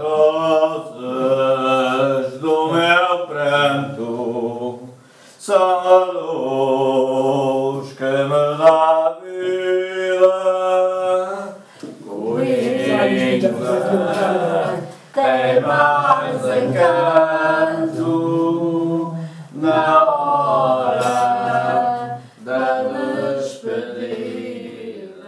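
Unaccompanied singing: a song sung in phrases with long held notes, broken by short pauses between phrases.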